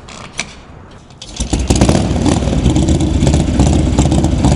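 Motorcycle engine starting about a second and a half in, then running loud with a rapid stream of firing pulses.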